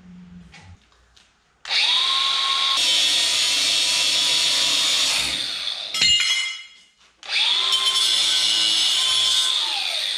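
Angle grinder cutting steel angle iron in two runs of about four seconds each. Each run starts with the motor spinning up and ends with it winding down. Between the runs, about six seconds in, there is a short metallic clatter.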